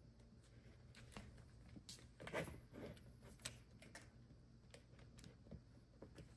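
Faint, irregular taps and clicks of kittens pawing at plastic ball-track toys and scampering on a wooden floor, with a slightly louder knock about two and a half seconds in.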